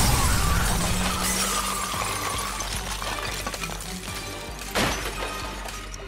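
Cartoon bomb explosion sound effect: a loud blast at the start, then shattering, crumbling debris that dies away slowly over several seconds, with a second short burst near the end. Background music plays underneath.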